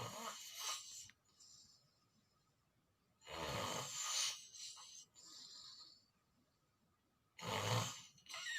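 A person snoring in sleep: three rough snores about four seconds apart, each followed by a fainter hissing out-breath.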